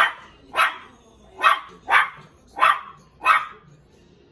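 Cairn Terrier puppy barking at its own reflection in a mirror: six barks in a steady run, about one every two-thirds of a second.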